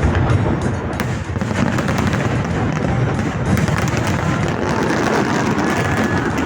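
Fireworks display going off: a continuous barrage of bangs and crackling, with deep booms underneath.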